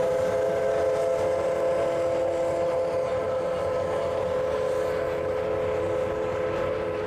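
Steam locomotive whistle sounding one long, steady chord of several notes, held without a break over the running noise of the train.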